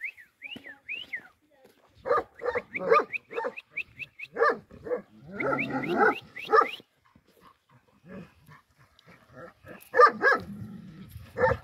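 Large Anatolian shepherd-type flock-guarding dogs barking in repeated clusters of short barks, with a lull in the middle and more barks near the end.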